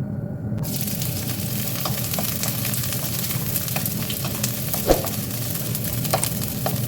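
Food frying in hot oil in a pan: a steady sizzle with scattered crackles, and one sharper knock, like a utensil against the pan, about five seconds in.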